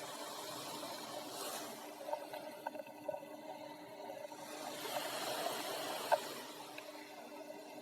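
Faint underwater ambience: a muffled water hiss with scattered small clicks and pops over a faint steady hum.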